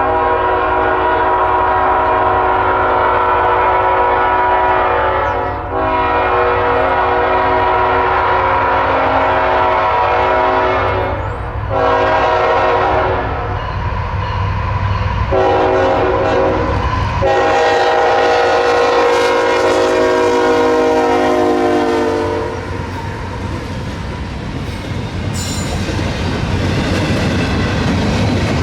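A diesel freight locomotive's multi-chime air horn blows a series of long blasts with one short blast, as for a grade crossing. As the horn stops, the train passes close by, its wheels rumbling and clacking over the rail joints.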